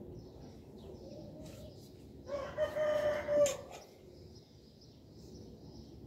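A rooster crows once a little before the middle, one drawn-out call of about a second and a half. Small birds chirp faintly throughout.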